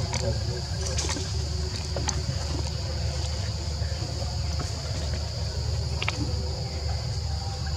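A steady high-pitched drone of insects under a constant low rumble, with a few faint clicks.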